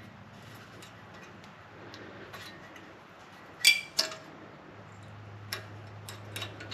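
Light metallic clicks and taps of a steel brake pad clip being hooked onto the edge of the caliper bracket and snapped into place, the loudest two clicks about halfway through, over a faint steady hum.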